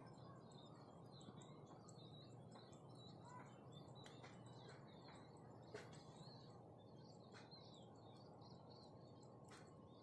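Faint outdoor ambience of small birds chirping, with short high chirps repeating throughout over a steady low hiss. A single sharp tick about halfway through.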